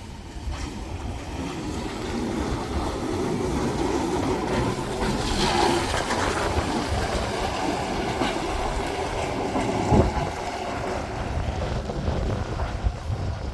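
A vehicle passing, its rumble building over a few seconds, holding, then easing, mixed with wind noise on the microphone; a sharp knock about ten seconds in.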